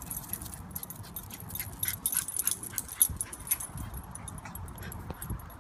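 Small dog whimpering, among scattered sharp clicks and light jingling.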